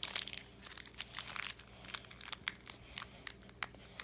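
A crinkly yellow blind-bag wrapper being crumpled and torn open by hand: irregular crackling and rustling.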